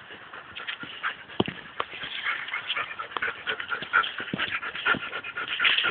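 Two dogs playing tug of war, making dog noises and scuffling as they pull, with many short, irregular clicks and knocks.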